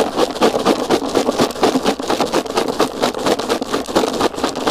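Lidded plastic bait box of particle mix (tiger nuts, maize, wheat and hemp) being shaken hard, the seeds rattling against the plastic in a continuous rough clatter as they are coated in bait powder.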